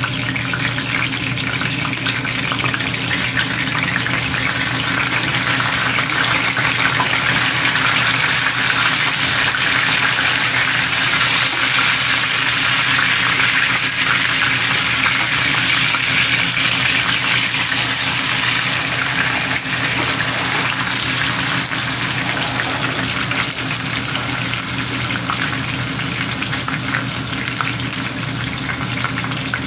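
Moose chuck roast searing in hot canola oil in a stainless steel skillet: a steady loud sizzle that swells in the middle as the roast is turned over with tongs onto its raw side.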